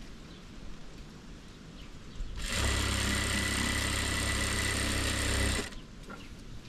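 A sewing machine running steadily at an even speed for about three seconds, starting and stopping abruptly.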